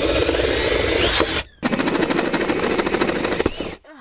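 Cordless drill boring a hole down through a van's floor panel: the drill runs steadily, drops out briefly about a second and a half in, then starts again with a fast chattering rattle that stops just before the end.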